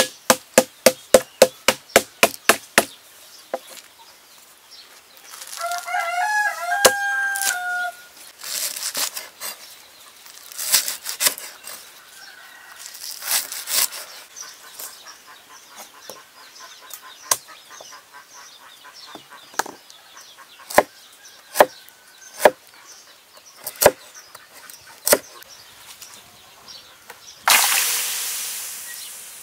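Knife chopping on a wooden board: a rapid run of about four strokes a second for the first few seconds, then single chops every second or two as lemongrass stalks are cut. A rooster crows once about six seconds in. Near the end comes a sudden loud rush of boiling water that fades as the chopped stalks go into the pot.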